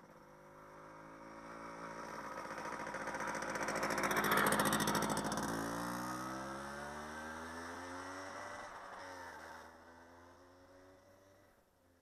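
A small motorcycle riding past: its engine grows louder as it approaches, drops in pitch as it goes by about halfway through, then fades as it rides away.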